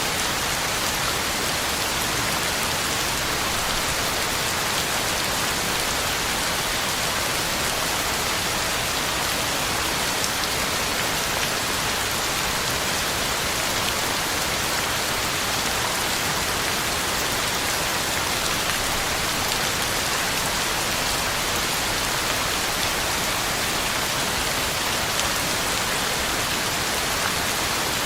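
Heavy, steady rain falling on the ground and leaves, an even hiss with fine patter of drops.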